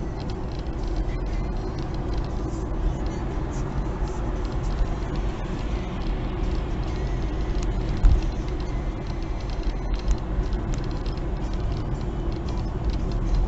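Road and engine noise of a moving vehicle heard from inside: a steady low rumble, with one thump about eight seconds in.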